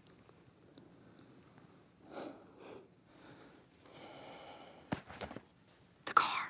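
Soft breathing and kissing sounds from a couple, with breaths about two seconds in and a longer exhale around the middle. Near the end a short, sharp intake of breath, a gasp, is the loudest sound as the kiss breaks off.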